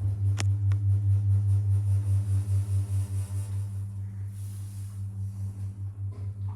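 Lift drive machinery running with a steady, low electrical hum that pulses slightly, with a single click about half a second in.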